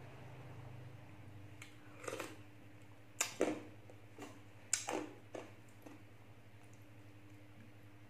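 Close-up eating sounds: a metal spoon scooping soft cucumber chunks from a glass bowl of sweet liquid, and wet mouth sounds of chewing and sipping. They come as a string of short sharp clicks and smacks from about two seconds in, over a low steady hum.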